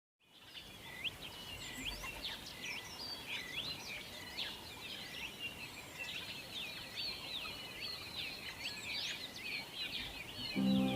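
Many small birds chirping and twittering at once, a dense, busy chorus of quick overlapping calls. Music with sustained chords comes in near the end.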